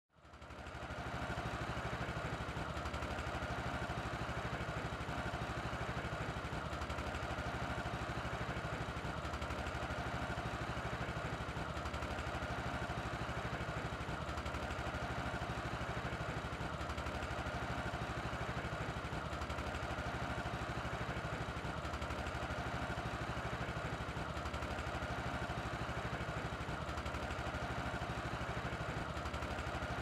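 An engine running steadily at an even speed, fading in over the first second.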